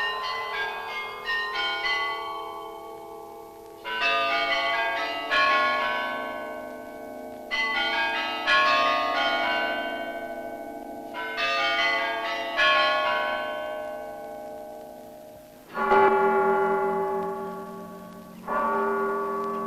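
Russian church bells ringing: a quick run of small bells at first, then several clashing strikes of many bells together, and near the end a large, deeper bell struck twice. Each stroke rings on and fades away slowly.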